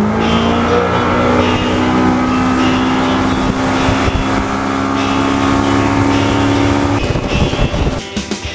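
Boat's outboard motor finishing a rise in pitch as it speeds up, then running steadily at speed over a steady hiss. It cuts off about seven seconds in.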